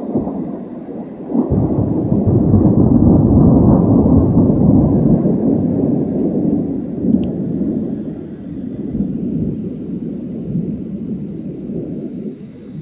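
Thunder: a deep rolling peal that builds suddenly about a second and a half in, stays loud for several seconds, then slowly dies away.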